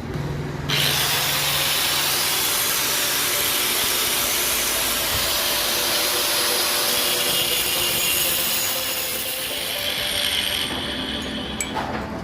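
Stick-welding arc crackling steadily as a rod burns. It starts a moment in and dies away near the end.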